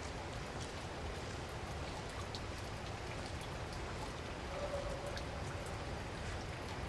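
Water dripping in a wet car park: scattered light drip ticks over a steady low rumble and hiss, with a brief faint tone a little past the middle.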